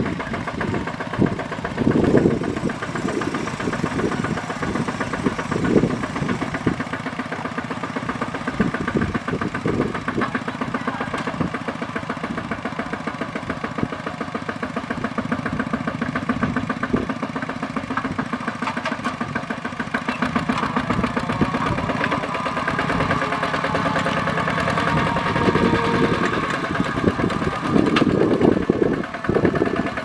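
Single-cylinder diesel engine of a Kubota RT140 two-wheel walking tractor running under load while pulling a heavily loaded straw trailer, a steady fast chugging with a few louder surges, the last near the end.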